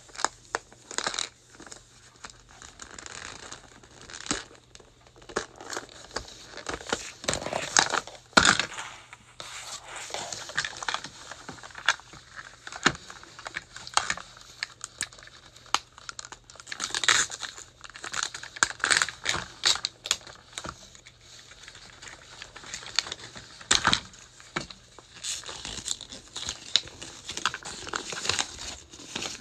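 Thin plastic wrapping film crinkling and tearing as a toy capsule is unwrapped, with scattered sharp clicks and taps as the hard plastic capsule and paper insert are handled.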